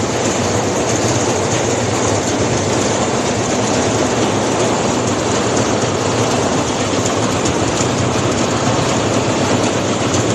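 A machine running steadily and loudly with a continuous rattling clatter.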